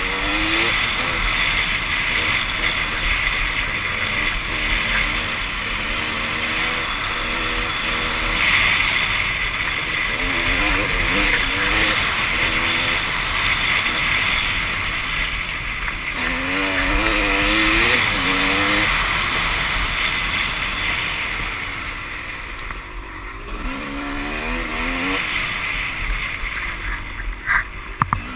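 Dirt bike engine being ridden, its pitch repeatedly rising and falling as the throttle opens and closes, under heavy wind noise on the microphone. A few sharp knocks come near the end.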